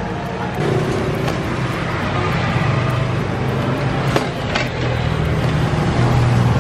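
A motor vehicle engine running in street traffic, a steady low hum that grows louder about half a second in, with a few light clicks over it.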